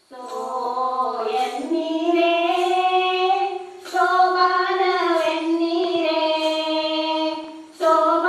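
Women singing a Kannada shobana pada, a traditional North Karnataka wedding folk song, in long drawn-out melodic phrases. The singing starts abruptly and pauses briefly about four seconds in and again near the end.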